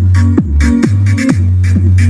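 Electronic 'racha' music played loud through a Volkswagen Saveiro's sound system with King loudspeakers: a heavy, steady bass with a kick drum that drops in pitch about twice a second.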